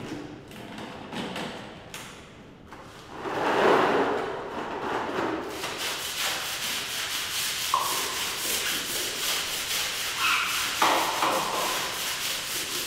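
Long-handled scrubbing brush worked back and forth over a wet tiled floor, settling into a fast, steady run of scraping strokes from about halfway through. Before that, a few knocks and a short louder rush of noise.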